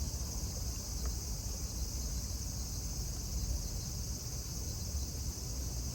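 Insects chirring in a steady, unbroken high drone, with a low rumble underneath.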